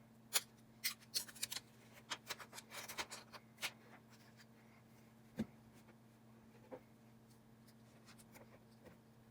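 Small, sharp clicks and taps of hands and small tools working on an iPhone XR during a display replacement, a quick run of them at first, then two single clicks, over a steady low hum.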